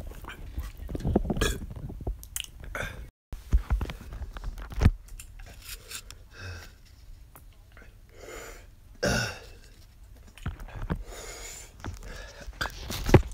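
Irregular knocks and rubbing of a phone being handled close to its microphone, as it is moved around by hand.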